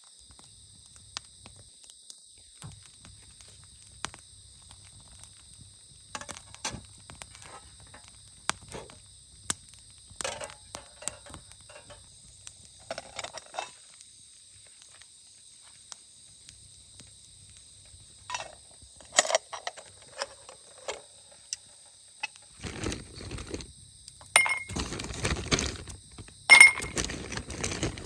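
Camp gear being handled: scattered clicks and knocks, then louder metallic clattering and clinking with bright pings near the end. Insects chirr steadily and high-pitched underneath.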